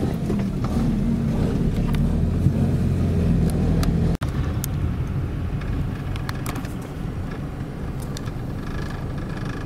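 Car cabin noise while driving through a flooded street in rain: a steady low engine and road rumble, with scattered light ticks of rain on the glass. The sound cuts out for an instant about four seconds in, and the rumble is a little lower after it.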